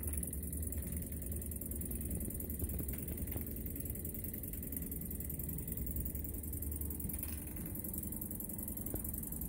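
Two Jensen toy live steam engines running steadily together, giving a low, even mechanical hum with a faint high hiss.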